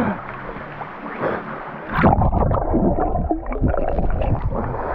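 Water splashing and gurgling. About two seconds in the sound turns muffled and rumbling, with bubbling, as the microphone goes under the water.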